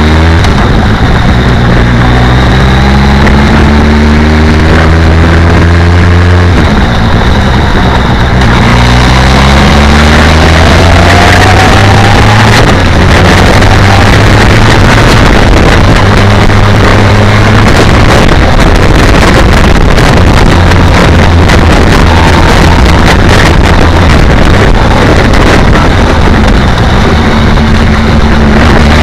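BMW K1200R Sport's inline-four engine pulling at low revs, its pitch rising in steps. From about eight seconds on, heavy wind noise on the microphone covers much of it as speed builds, and the engine's pitch climbs again near the end.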